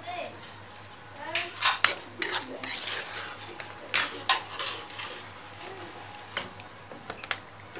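Metal spoon scraping and clinking against a shallow steel pan as fried food is scooped out onto a plate. There is a busy run of scrapes and knocks from about one and a half to four and a half seconds in, then a few single clinks near the end.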